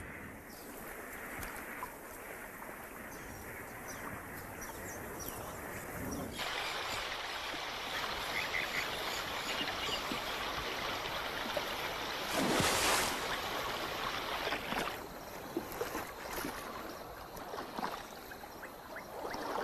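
Water splashing and lapping against shore rocks as spot-necked otters move into the water, with one louder splash a little past halfway.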